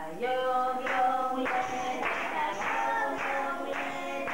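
A children's song sung to a steady beat of hand clapping.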